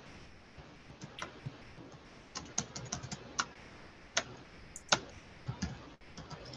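Faint typing on a computer keyboard: a dozen or so irregular key clicks, bunched most closely around the middle.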